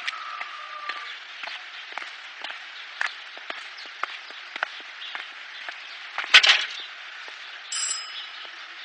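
Irregular sharp knocks and clicks over a steady hiss, with a louder clattering cluster about six and a half seconds in.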